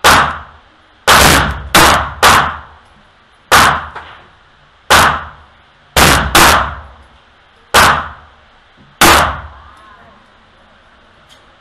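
Sig P365 subcompact pistol firing ten shots at an unhurried, uneven pace of roughly one a second, two of them in quick pairs; each shot echoes off the walls of an indoor range.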